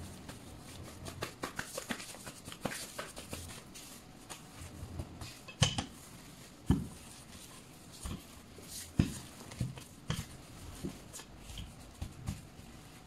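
Hands handling things in a kitchen: a run of light clicks and taps with a few louder, short, soft thumps, the loudest about six, seven and nine seconds in.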